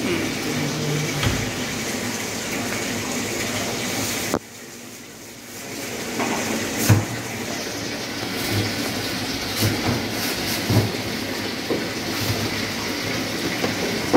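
Steady machine-like running noise that drops away abruptly about four seconds in and builds back up over the next two seconds. Through the second half, a plastic bag crinkles and a few short knocks and clicks sound as fish is bagged by hand.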